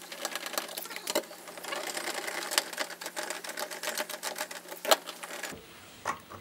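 Rapid, irregular mechanical clicking and rattling as screws are driven by hand into the plastic trim of an MX-5 door card. It stops abruptly a little before the end.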